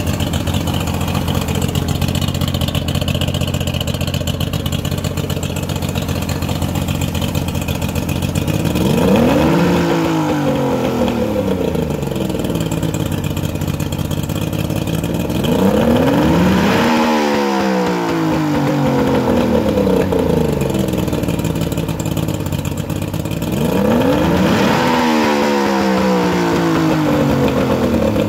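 2001 Mercury 50 hp two-stroke outboard motor running at idle, then revved three times, several seconds apart; each time the pitch rises quickly and then falls back to idle over a few seconds.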